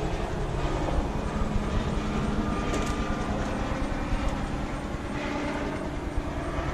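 A propeller aircraft's engine droning steadily, with wind rumbling on the microphone.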